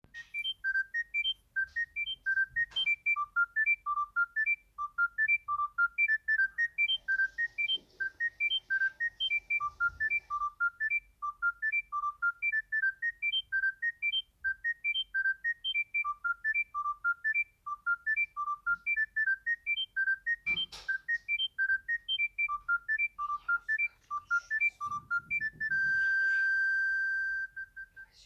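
Mobile phone ringtone playing a fast melody of short, high beeping notes, ending on one long held tone.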